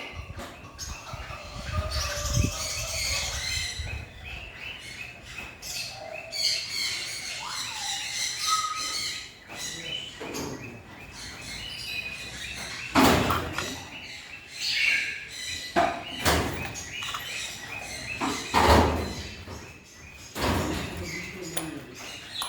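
Pet birds chirping and calling in their aviary. A few sharp knocks or clatters sound among the calls, the loudest just past halfway and again a few seconds later.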